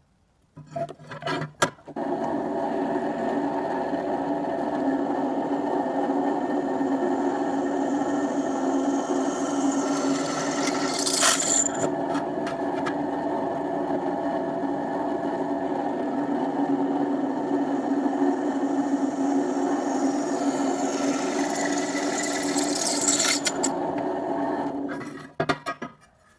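Bench drill press running with a twist bit cutting through a steel bar: a steady motor hum with a grinding cutting noise that turns louder and shriller twice, in the middle and near the end, then stops. A few knocks come just before the drilling starts.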